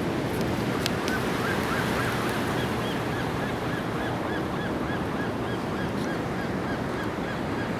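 Ocean surf washing steadily, with a bird calling in a regular series of short high chirps, about two a second, for most of the stretch.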